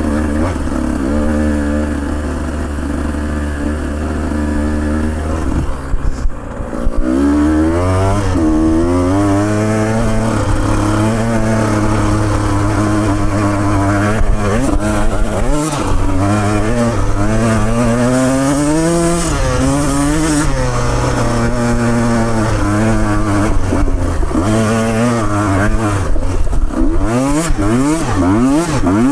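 Vehicle engine running on the move: a steady low note at first, then from about seven seconds in the engine note rises and falls repeatedly as the throttle is opened and eased off.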